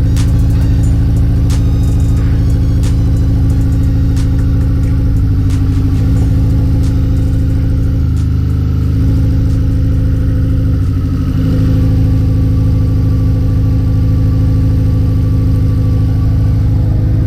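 Turbocharged Acura RSX Type S 2.0-litre four-cylinder engine running steadily at idle, still misfiring with a new coil pack fitted; the owner puts the misfire down to a faulty fuel injector.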